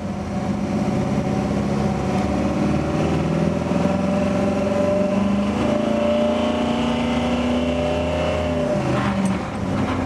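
A car engine running, its pitch climbing slowly as the revs rise, holding, then dropping away about nine seconds in.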